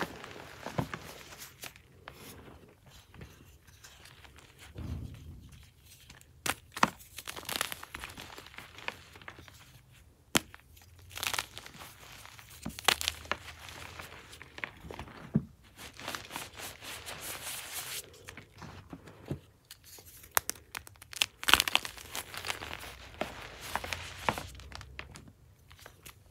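Blocks of gym chalk (magnesium carbonate) being crushed and crumbled by hand into powder: dry crunching and crackling in irregular clusters, with softer squeezing of loose powder between.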